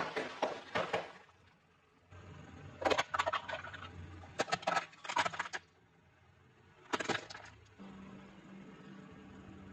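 Crunchy fried food being bitten and chewed in several bursts of crackling crunches with short pauses between them. A faint steady low hum comes in near the end.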